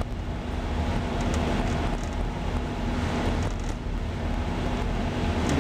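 Steady low drone of a ship's engines under the hiss of wind and rough sea washing around the stern, with no sharp events.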